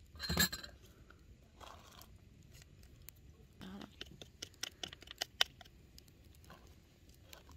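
A quick run of light ticks and scratchy rustles from a small paper packet as baking powder is tapped out of it into a metal mixing bowl. A brief louder sound comes about half a second in.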